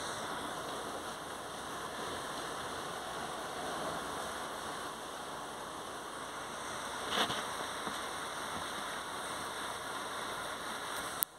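Heavy rain falling steadily on rooftops and streets, a constant even hiss. A short sharp knock or click stands out about seven seconds in, and another click comes just before the sound drops off suddenly at the very end.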